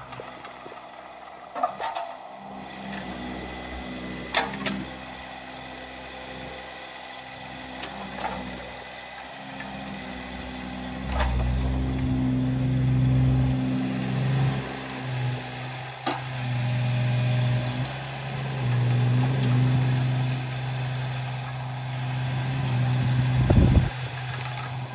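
Kubota KX016-4 mini excavator's three-cylinder Kubota diesel engine running while the hydraulics work the boom and slew. The engine note grows louder and deeper from about halfway through as it takes load, with a few sharp knocks and a brief loud surge near the end.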